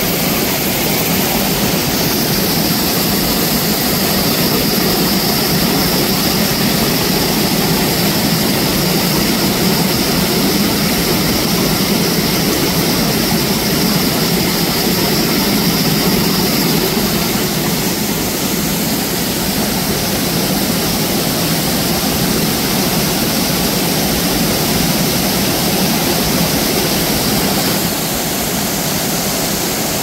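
Mountain stream rushing over rocks in a shallow cascade: a steady, loud rush of water. A steady high-pitched drone sits over it from about two seconds in, breaking off briefly past the middle and stopping near the end.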